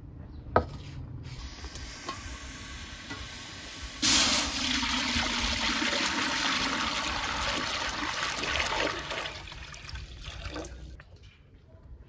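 Water poured from a steel pail into a large aluminium cooking pot: it starts suddenly about four seconds in with a splash and runs on as a steady gush for about five seconds, then tapers off. A single sharp knock about half a second in.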